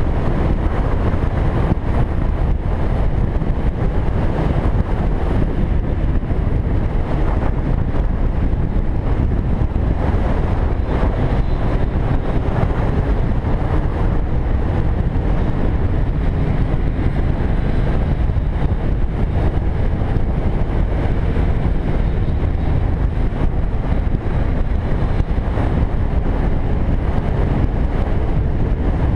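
Steady wind rushing and buffeting over the microphone of a camera on a moving motorcycle, with the low rumble of the motorcycle and its tyres on the road underneath.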